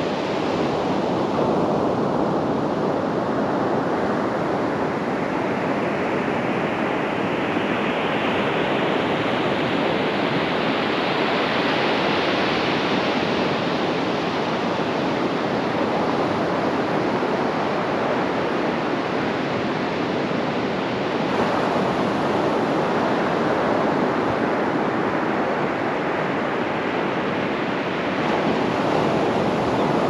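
Ocean surf breaking and washing up a sandy beach: a steady rush of water and foam. The hiss grows brighter and swells over the first dozen seconds, then eases, with a fresh surge about two-thirds of the way through and another near the end.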